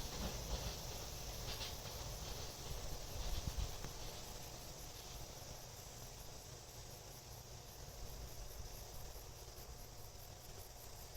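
Summer insects trilling steadily in a fast, even, high-pitched pulse, over the low rumble of a train fading away after it has passed.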